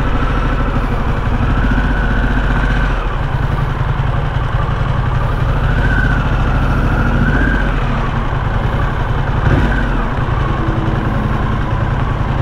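Motorcycle engine running as the bike is ridden slowly, a heavy low rumble throughout with its note rising and falling slightly a few times. A brief knock comes near the end.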